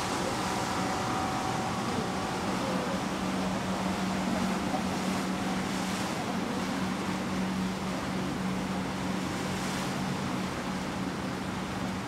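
Steady low hum of a Hurtigruten coastal ship's engines, heard inside the wheelhouse, over an even rushing noise.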